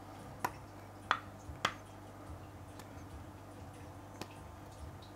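A few short, sharp clicks and ticks of fingers and nails picking at the tightly sealed lid of a small reptile-supplement tub. Three clear clicks come in the first two seconds, then a couple of fainter ones.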